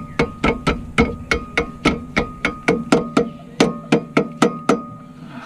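Hand hammer rapidly striking a suspension bolt to drive it out of the front strut and steering knuckle: an even run of sharp metallic knocks with a light ring, about four to five blows a second, that stops about five seconds in.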